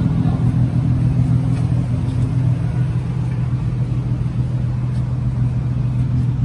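A car engine idling: a steady low hum.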